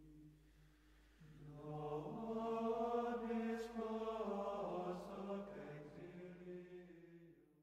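Closing music of slow vocal chanting with long held notes. It swells about a second in and fades out at the end.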